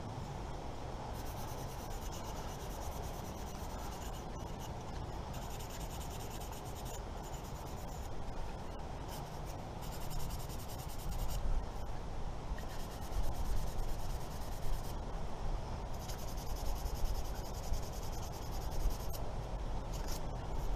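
Sandpaper rubbing on a hand-carved wooden piece in several spells of rapid scratchy strokes, each a few seconds long.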